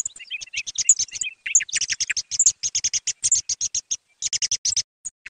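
Recorded thrush calls played as a night-hunting lure: fast runs of short, high chirps, broken by short pauses about four seconds in and again near the end.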